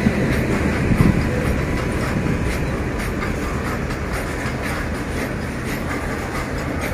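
Coal-loaded wagons of an Indian Railways freight train rolling past: a steady rumble of steel wheels on rail, repeated wheel clicks, and a couple of heavier knocks near the start.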